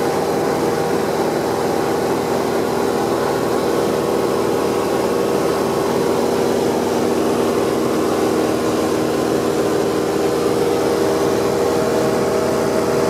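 Single-engine light aircraft's engine and propeller running at a steady cruise drone, heard from inside the cockpit, with a faint shift in the engine note partway through.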